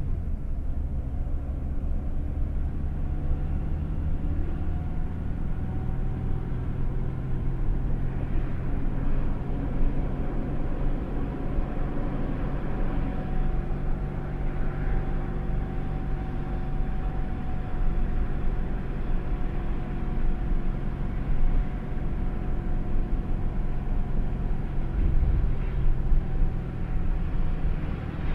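Steady low engine and road rumble of a car driving slowly in traffic.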